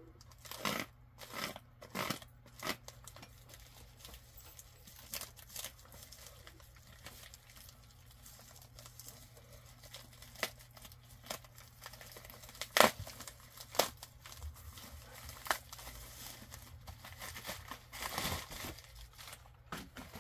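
A plastic shipping mailer being cut and torn open, the plastic crinkling and rustling with scattered sharp snaps, the loudest about two-thirds of the way through. Near the end comes a longer stretch of rustling as the contents are pulled out.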